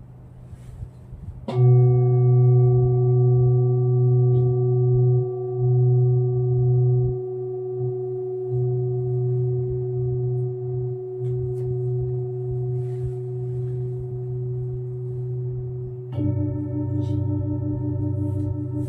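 A singing bowl struck about one and a half seconds in and left to ring: a long low hum with several higher overtones, slowly fading. It is struck again near the end, and this time the tone wobbles with a regular pulse.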